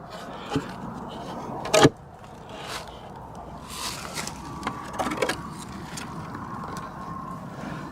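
Wooden fence board knocking against the fence as it is handled and set in place: a few short knocks, the loudest a single sharp one just under two seconds in, over a steady background hum.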